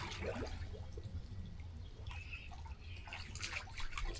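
Light water sounds in a small kiddie pool: scattered drips and soft trickling as a person lies in the shallow water, over a low rumble.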